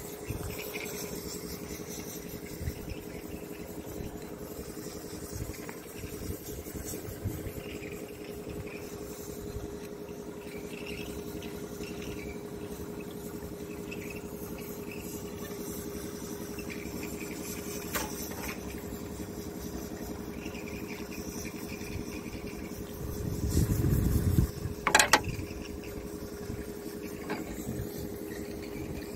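Excavator diesel engine running steadily at idle, with a brief louder low swell near the end. A couple of sharp clicks from small metal parts being handled.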